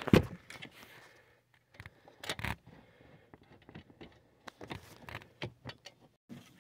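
Scattered scrapes, rustles and clicks of hands working plastic trim under a car's dashboard, with a sharp knock just after the start.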